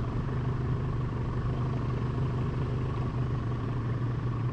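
A boat's outboard engine running steadily in gear at trolling speed, an even low hum.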